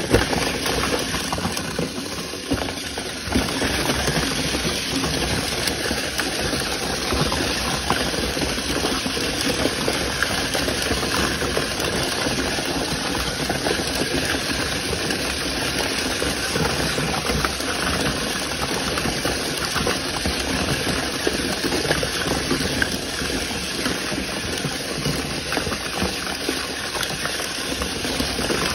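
A boxful of small battery-powered self-righting toy cars running at once: the steady whir of their tiny electric motors, with a dense clatter of plastic wheels and bodies knocking into each other and the cardboard box.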